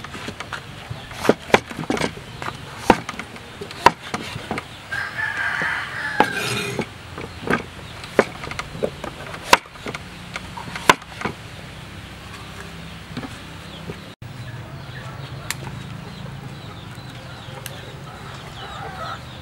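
Cleaver chopping through ripe papaya onto a wooden cutting board, a series of sharp knocks during about the first eleven seconds. Chickens cluck in the background.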